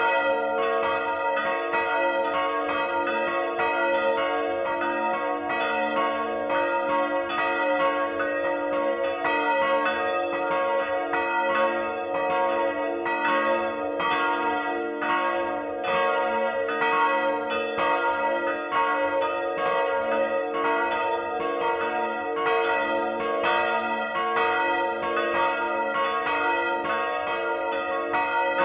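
Swinging church bells of a three-bell tower ring, by Rincker (1952) and Johann Peter Bach (1759), ringing together, heard close up in the belfry. The clapper strokes follow one another steadily and overlap, building a dense, continuous ringing of several bell tones.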